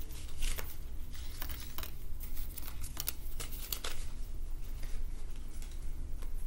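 A deck of Kipper cards being shuffled in the hands, with soft papery flicks and slaps as cards are dealt onto a wooden table, over a low steady hum.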